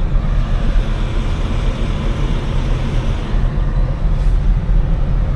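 Steady low engine rumble heard from inside a vehicle's cab as it moves slowly while looking for a parking spot.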